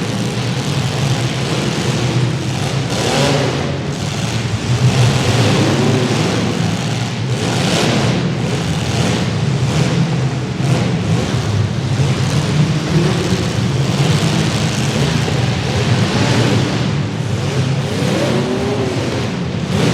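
Several compact demolition derby cars' engines running and revving at once, their pitches rising and falling as the cars accelerate and back up, with a few brief surges of louder noise.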